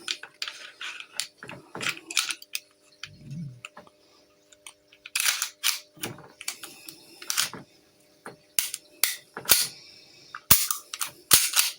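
A reassembled replica air pistol being worked by hand: a string of sharp plastic-and-metal clicks and clacks from its slide and parts, coming in irregular clusters and loudest near the end.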